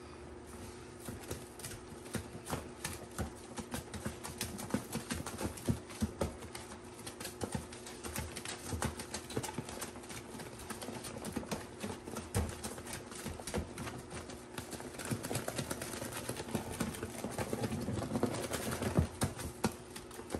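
Rubber-gloved hands squishing, rubbing and patting a thick, gritty wet paste of grout and cleaning powder in a plastic tub: an irregular run of wet squelches, smacks and crackles, busier near the end.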